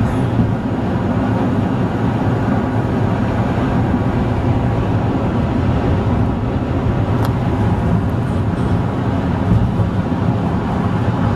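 Steady road and engine noise inside a moving car: an even low rumble that holds level, with a faint tick about seven seconds in.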